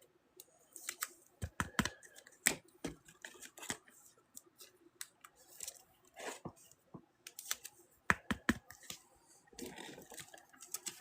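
Irregular soft clicks and taps of trading cards being handled and flipped through by hand.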